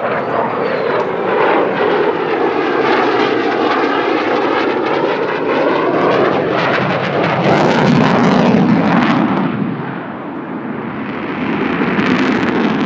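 F-35A Lightning II's single jet engine passing in flight, its pitch falling as it goes by. A harsh crackling rumble is loudest about eight seconds in, then dips and builds again near the end.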